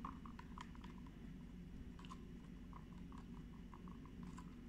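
Faint, irregular light clicks of a thin wooden stick knocking and scraping against the sides of a plastic cup while stirring melted glycerin soap base.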